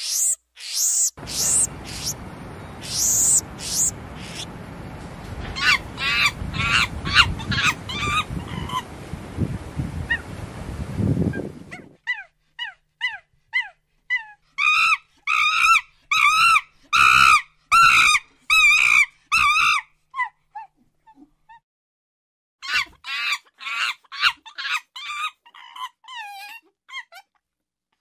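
Monkey calls: repeated short, high-pitched shrieks and chatters in clusters. The calls come in a dense run in the middle, break off for a couple of seconds, then resume. An even background hiss lies under the first part and stops suddenly about twelve seconds in.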